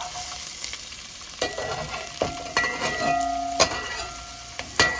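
Onion sizzling in hot oil in a pan just after being thrown in, with a utensil stirring and knocking against the pan several times and the pan briefly ringing.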